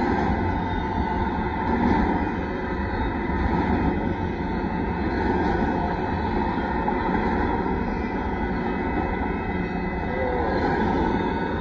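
Kansas City Southern de México intermodal freight train rolling past a grade crossing: a steady, unbroken noise of the cars running by on the rails.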